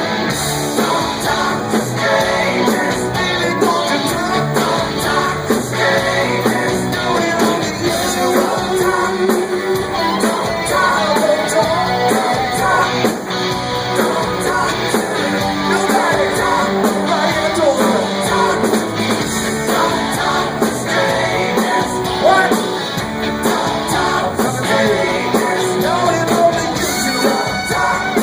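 Live rock music: a band with electric guitar playing, with singing over it.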